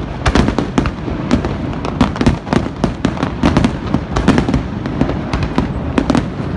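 Aerial fireworks display going off in a dense, continuous barrage: many sharp bangs and cracks a second, overlapping one another.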